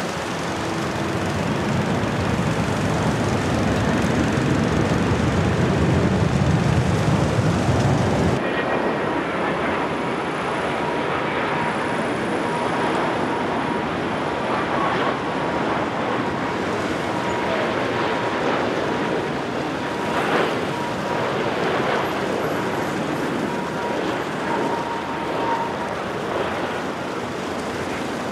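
Jet airliner noise: an Airbus A321's engines rumble loudly as it lands, building over the first eight seconds and cutting off abruptly. Then a Boeing 787's engines sound steadily, with a thin steady whine, as it comes in on final approach to touch down.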